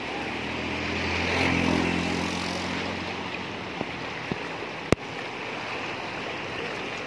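Fast floodwater rushing and churning, with a low engine hum that swells and fades over the first three seconds or so. A sharp click about five seconds in.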